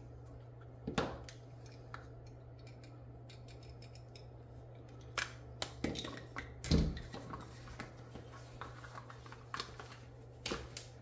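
Scissor-style tube cutter snipping through rubbery heat shrink tubing: a scatter of sharp clicks and snips. About two-thirds of the way in comes a louder knock as tubing and tools are handled and set down on a silicone mat.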